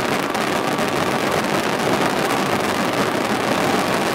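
Fireworks barrage: a dense, unbroken stream of crackles and pops running together into a steady roar of noise.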